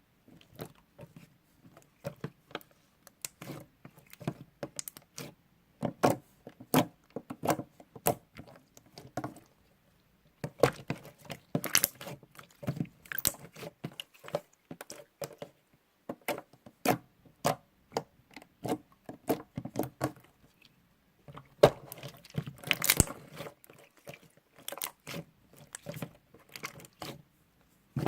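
Slime being squished and pressed by hand, giving irregular clicking, popping and crackling as trapped air bursts, with a couple of brief pauses.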